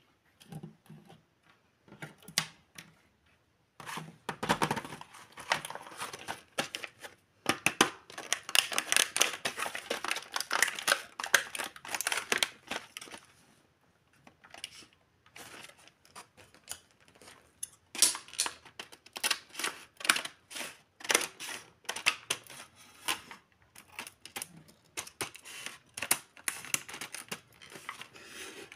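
Plastic toy packaging being handled: a few light clicks of small plastic toy spoons and forks set on a table, then a clear plastic bag crinkling and rustling for long stretches, with scissors cutting into the plastic near the end.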